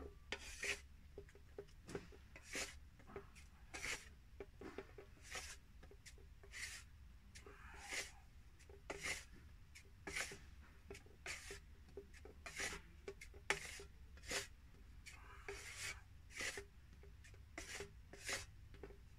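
Metal filling knife scraping and folding two-part filler on a flat mixing board: faint, short, regular strokes, about three every two seconds.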